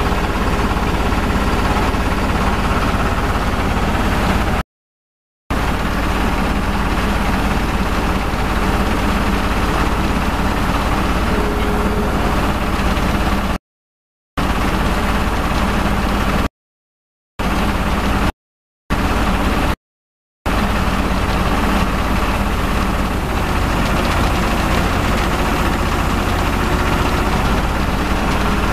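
HF150T water well drilling rig's engine running steadily under load while drilling, a loud continuous drone. It drops to dead silence and resumes abruptly five times.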